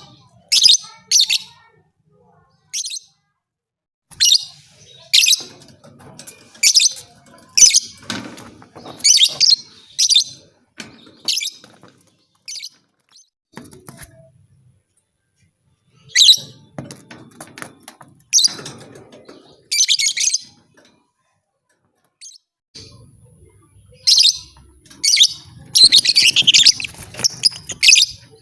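Lovebird chirping in short bursts of shrill, rapid chatter separated by brief pauses, with a denser, louder run of calls near the end.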